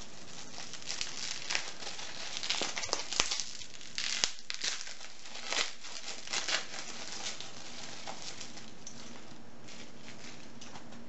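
Crinkly packaging being unwrapped by hand: irregular crackles and rustles, busiest in the first several seconds and sparser near the end.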